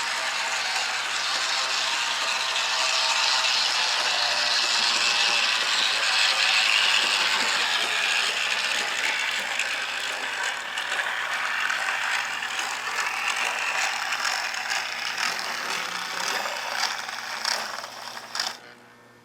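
1940s Mantua Camelback model steam locomotive running on track: its motor and gears whirr and rattle steadily, freshly cleaned and lubricated but not yet running perfectly smoothly. The sound grows louder about five seconds in, fades near the end and then cuts off.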